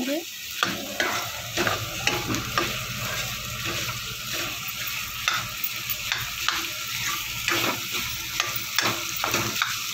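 Steel spoon stirring and scraping boiled chickpeas and potato chunks through masala in a metal kadhai, with repeated irregular scrapes over a steady low sizzle of the masala frying.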